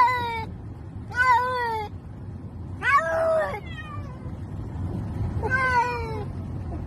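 A cat meowing four times: drawn-out meows of about half a second each, spaced a second or two apart, each falling in pitch at its end.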